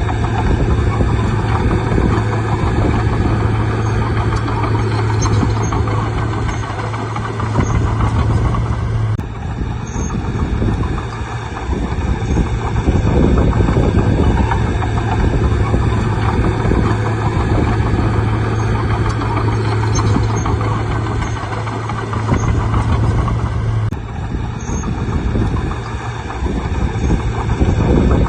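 Bulldozer's diesel engine running with a steady low hum, its loudness dipping and returning every few seconds as the machine works.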